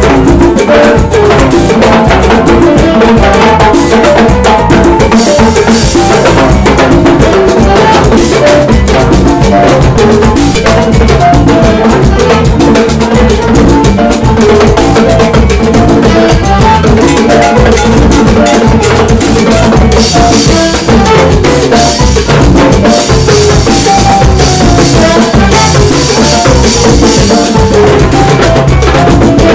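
A live salsa band playing, with the timbales and drum kit taking the lead in a busy percussion solo over congas, electric bass and a scraped güiro.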